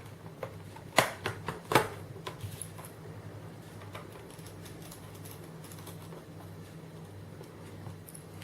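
Two sharp clicks and a few lighter ticks as a laptop's bottom cover is put back in place, over a steady low hum.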